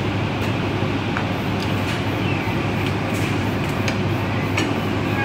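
Steady low hum of commercial kitchen ventilation, with a few faint clicks on top.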